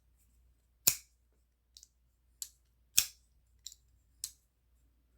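Kizer Cares Fighter liner-lock folding knife being worked open and shut: about six sharp metallic clicks, the loudest about a second in and three seconds in, with fainter ones between.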